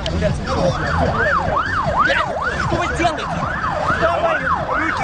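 An emergency vehicle's siren in a fast yelp, its pitch rising and falling about two or three times a second, coming in about half a second in. Voices can be heard underneath.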